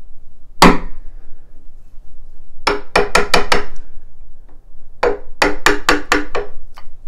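Claw hammer striking the plastic handle of a wood chisel, cutting a hinge mortise into the edge of a wooden door. One blow, then two quick runs of about six blows each.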